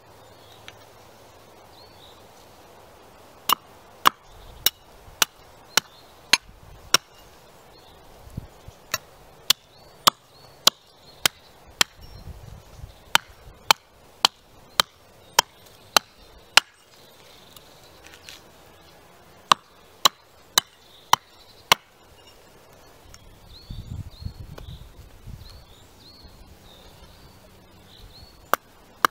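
Robin Wood carving axe chopping into a split spoon blank set on a tree stump: sharp single chops, about two a second in runs, with a long pause before a last chop near the end.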